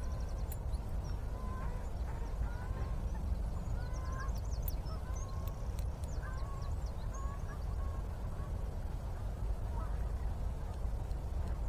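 Waterfowl calling across a lake in many short repeated calls, some rising in pitch, with small birds chirping high above and a steady low rumble beneath.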